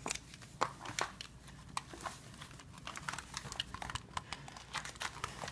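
Scattered light clicks and rustling as plastic fashion dolls are handled and moved about by hand, several small knocks a second at an irregular pace.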